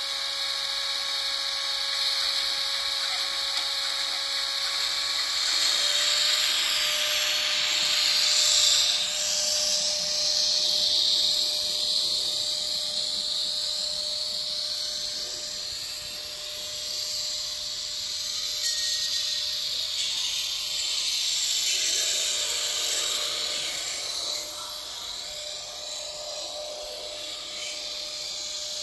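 N-scale model train running: a small electric motor's steady whine with a hiss of wheels on the track, growing louder about six seconds in and dropping back after about twenty-four seconds.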